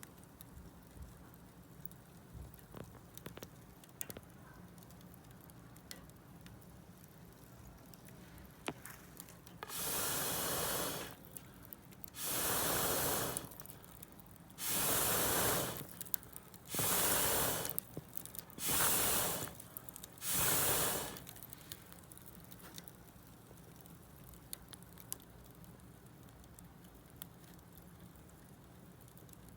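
Wood bonfire crackling with scattered small pops. About ten seconds in come six loud hissing bursts, each about a second long.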